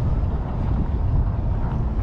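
Wind buffeting the microphone: a steady, fluttering low rumble with no other distinct sound over it.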